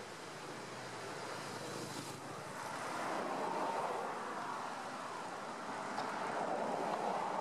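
Ocean surf: a steady rushing wash of waves that swells louder about three seconds in and again near the end.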